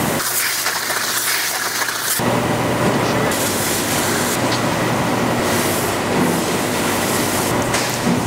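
Steady din of factory machinery around the rubber half-shell moulding presses: hiss with a low hum underneath. For about the first two seconds mostly hiss is heard, then the fuller low rumble comes back.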